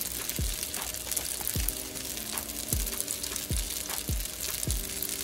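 Background music with a deep, irregularly spaced bass-drum beat and held bass notes, over the steady sizzle of garlic noodles frying in a pan.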